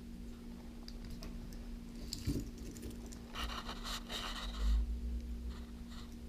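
Light clicks and a short stretch of scraping from a small tool working on a wristwatch, followed by a dull knock, over a steady low hum.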